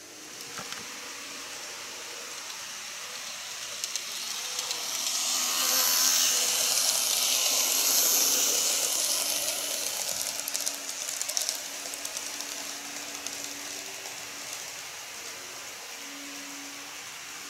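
Model E127 series 100 electric train running past on sectional track: the hiss of its motor and wheels on the rails builds, peaks as it passes close, then fades as it runs away. A quick series of clicks from the wheels crossing rail joints comes a few seconds after the peak.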